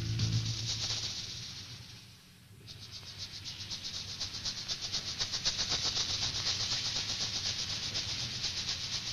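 A fast, pulsing hiss in the soundtrack. It fades away about two seconds in and swells back half a second later. Low sustained music notes die away at the start.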